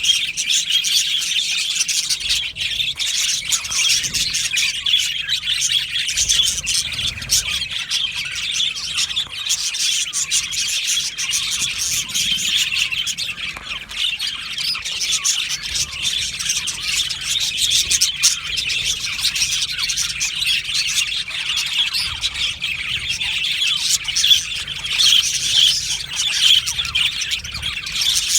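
A colony of budgerigars in an aviary chattering and chirping together, a dense, continuous overlapping warble with scattered sharp clicks.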